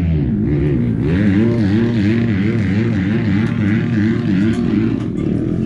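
Dirt bike engine revving up and down in quick, even swings, about two a second, as it is ridden.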